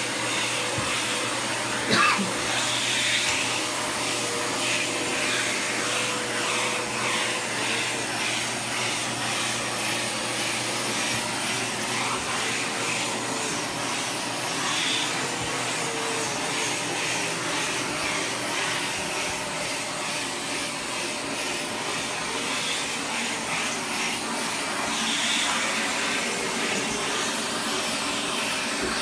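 Dyson DC77 Animal upright vacuum running steadily, its wand and tangle-free turbine tool working carpeted stair treads. A single sharp knock about two seconds in.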